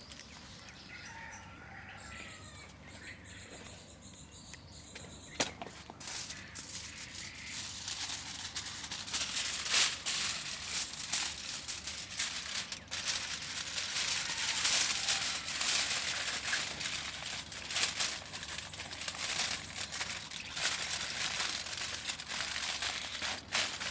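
Sheet of aluminium foil crinkling and rustling as it is handled and wrapped around a bag on a branch, starting about five seconds in and going on as dense, irregular crackles.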